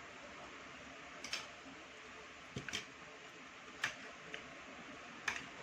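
Scattered light clicks and taps of utensils on plates and bowls during a meal, about six in all, over a steady background hiss.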